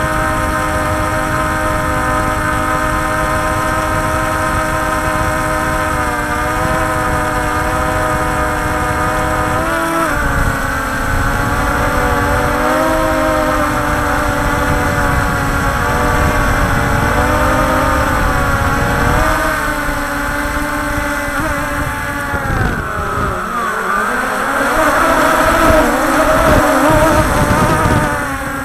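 Radio-controlled model aircraft's motor and propeller running steadily in flight, heard from an onboard camera with wind rumble on the microphone. The whine wavers in pitch with throttle, dips and climbs back about three-quarters of the way through, and runs louder near the end.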